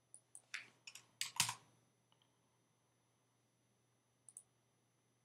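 Computer keyboard keys typed in a quick run of about seven strokes over the first second and a half, entering a new value into a field, then a double click a little past four seconds.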